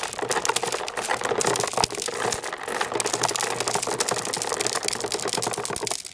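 Many marbles rolling and clattering down plastic marble-run slopes: a dense, continuous stream of small clicks and rattles that drops away right at the end.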